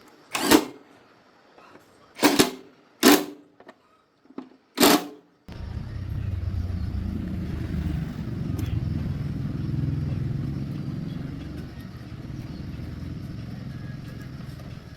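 Four short, loud bursts in the first five seconds. Then a motorbike engine starts suddenly and runs steadily with a low rumble.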